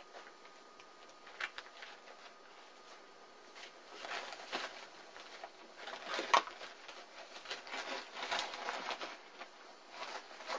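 Four-week-old German Shepherd puppies scuffling at play: irregular pattering, scratching and rustling that gets busier from about four seconds in.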